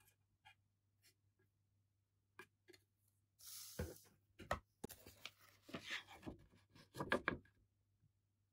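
Handling noises on a tabletop: a hard plastic figure display base is set down with a few light knocks, among rustling and crinkling, then a paper instruction sheet is picked up with a short burst of rustles and taps.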